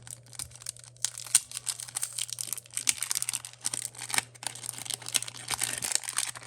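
Plastic packaging being crinkled and torn open by hand, a busy run of irregular crackles and clicks, over a steady low hum.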